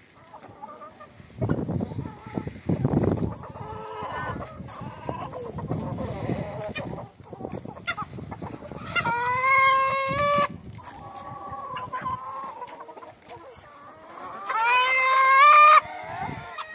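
A flock of hens clucking while feeding, with a rooster crowing twice: one long, slightly rising crow about nine seconds in and a louder one near the end. Low rustling and scuffling at the feed fill the first half.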